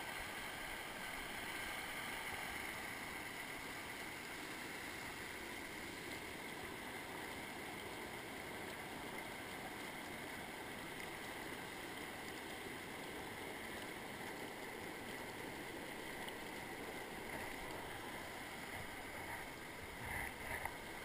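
Stream water rushing steadily over rock ledges and small cascades. A few soft bumps come near the end.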